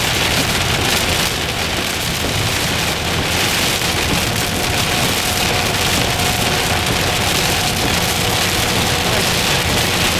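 Heavy rain falling on a car's windshield and roof, heard from inside the car as a steady, even hiss.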